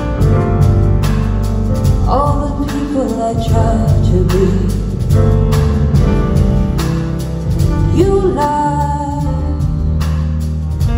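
Live band playing, with a woman singing sung phrases over keyboards, guitar, bass and drums.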